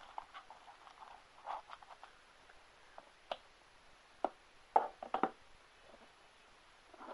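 Hands handling plastic DVD cases: scattered light clicks and rustles, with a cluster of sharper clacks about five seconds in.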